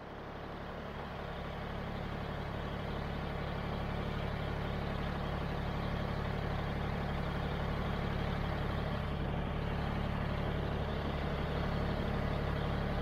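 John Deere 1020 tractor engine idling steadily. It comes up gradually over the first few seconds, then holds an even note.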